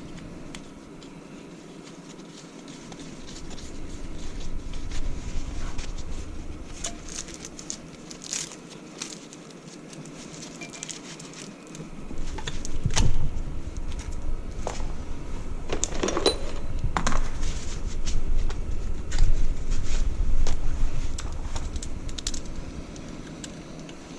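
Scattered clicks, clinks and rattles of tools and small metal parts being handled during repair of a dry rotary vane vacuum pump for a milking machine, with low knocks and bumps in the second half.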